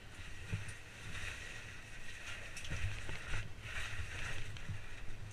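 Rustling and knocking from a caver's oversuit and gear as they move along a rope through a rock passage, with irregular low bumps and a few clicks.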